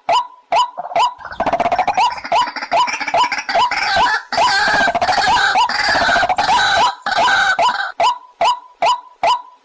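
White-breasted waterhen calling: a run of short hooked notes, about two or three a second. From about a second in until near the eight-second mark they are overlaid by a dense, harsh croaking chorus, and then the lone repeated notes carry on.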